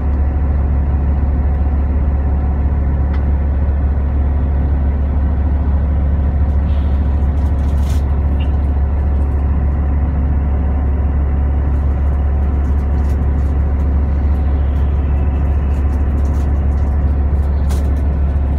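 Steady low drone of a coach bus on the move, heard inside the cabin: engine and road noise, with light clicks and rattles in the second half.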